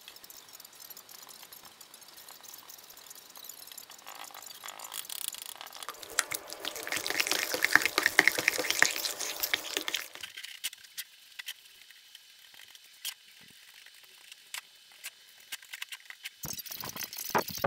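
Thick orange paint being stirred in a plastic tub with a stir stick: a loud, churning stir for about four seconds midway through. Near the end come quick, regular paintbrush strokes, a few each second, as the paint is brushed onto MDF letters.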